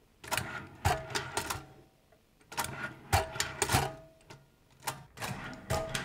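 Letters being stamped into a metal dog tag by hand: three quick clusters of sharp metallic clacks, each with a short ring.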